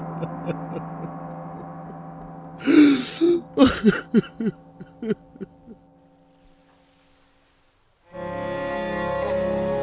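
A man's sudden anguished cry about two and a half seconds in, breaking into a run of shorter, fading sobs, over a soft music score that dies away. After a brief silence, sad bowed strings come in near the end.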